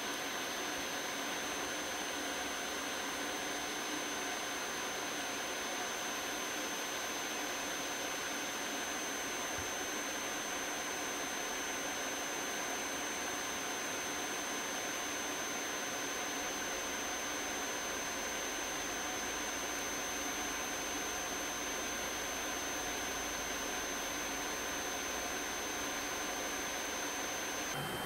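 Electric nail drill running steadily with a high-pitched whine over a hiss, its small bur scaling a thickened fungal toenail.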